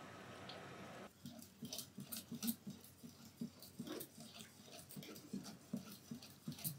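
A wire whisk beating batter in a ceramic mixing bowl: quick, uneven wet strokes with light clicks of the wires against the bowl, starting about a second in after a faint steady hiss.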